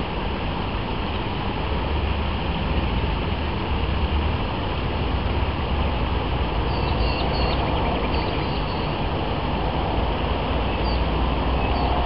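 Steady outdoor background rumble and hiss, with a few short, high bird chirps about seven to nine seconds in and again near the end.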